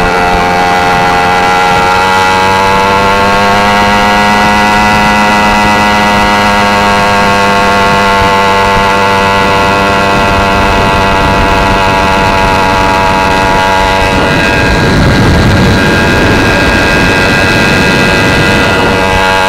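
Two-stroke motorized-bicycle engine with a newly ported 47mm iron-sleeve cylinder and a jog pipe, running steadily at cruising speed, its pitch rising slightly a few seconds in and then easing back. For a few seconds past the middle, a rush of wind noise buffets the microphone over the engine.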